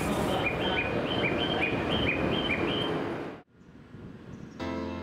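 A high chirping chime repeats a falling two-note figure about three times a second over steady station noise. It cuts off abruptly about three seconds in, and piano music begins near the end.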